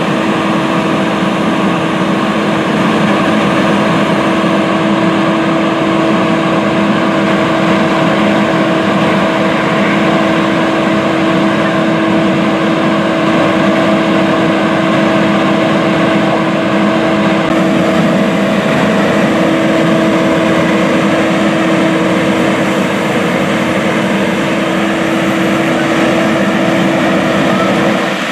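Fire engine's engine running at a steady speed to drive its pump for the hose lines: a loud, constant drone with a steady hum.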